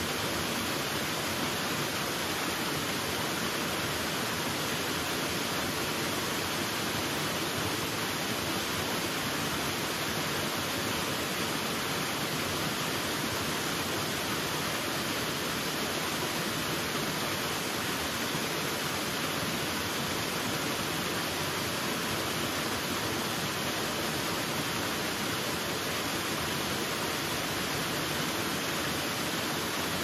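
Waterfall pouring steadily: an even, unbroken sound of falling water that does not change.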